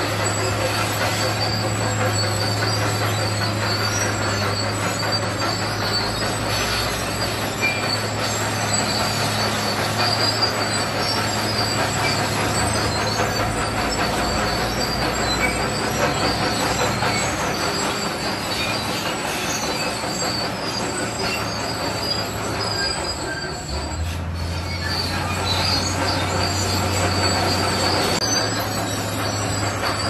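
Crawler bulldozer working under load, its diesel engine running with a steady low note and its steel tracks clattering and squealing as it pushes crushed rock. The engine note drops a little at about 23 seconds and comes back up near the end.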